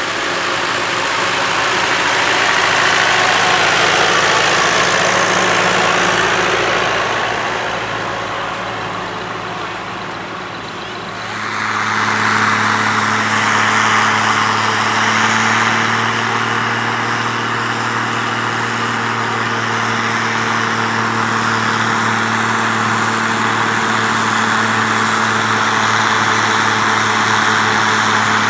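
Tractor engines running. A Massey Ferguson drives off after its pull and its engine fades, then about eleven seconds in a second tractor's engine runs steadily close by as it tows the weight sled.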